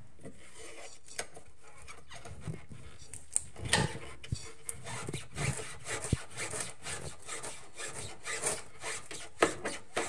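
BMW X5 rear subframe being levered back and forth in its torn rubber subframe bushing: irregular scraping, rubbing and knocks as it shifts. The sound is a sign of excessive play from a broken-down bushing.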